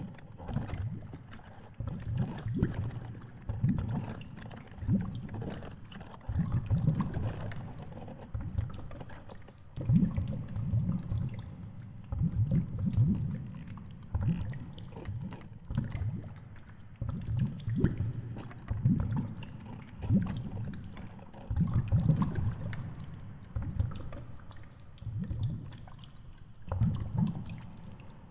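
Underwater audio from a submerged action camera in its waterproof housing: a low rumbling wash of water noise that swells in uneven surges about once a second.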